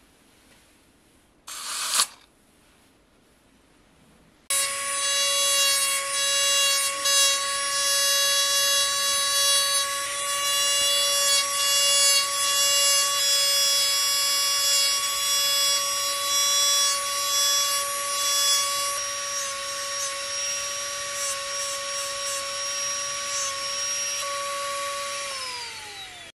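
A short burst of noise about two seconds in, then a handheld rotary tool with a small polishing wheel starts and runs with a steady high whine as it works over a gold-plated jhumar. Near the end it is switched off and its pitch falls as it spins down.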